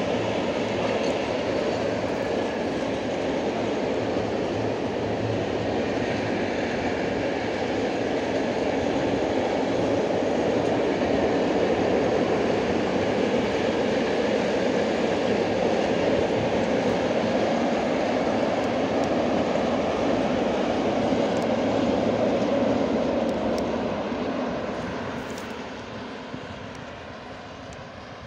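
Freight train of open coal wagons rolling across a rail overbridge, a steady rumble of wheels on rail that fades away over the last few seconds as the train moves off.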